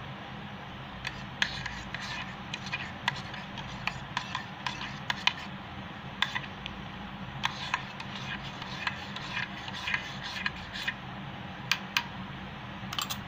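Spoon stirring in a stainless steel tumbler, mixing powdered drink into milk: irregular sharp clinks and scrapes of metal on metal, over a steady low hum.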